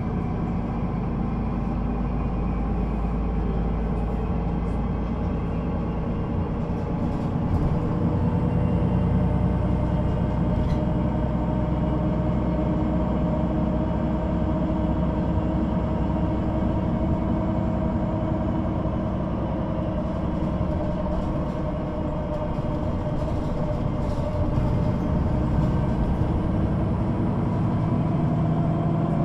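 Solaris Urbino 18 III articulated bus under way: its upright DAF diesel engine and Voith automatic gearbox run steadily, with whining tones that drift up and down in pitch as the bus changes speed.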